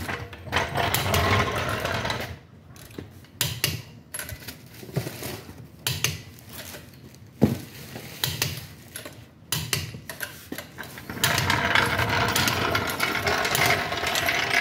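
Long-handled socket wrench working a car's front-wheel lug nuts: irregular mechanical clicking and metal clinks, with one sharp knock about halfway through and a denser, continuous rattle near the end.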